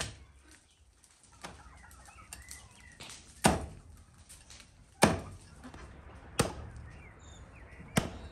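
Cleaver chopping through bone-in lamb on a wooden stump block: single heavy strikes, five in all, about a second and a half apart.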